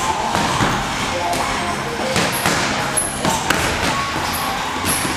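Boxing gloves landing in a sparring exchange: a run of short thuds at irregular intervals, over indistinct voices and background music.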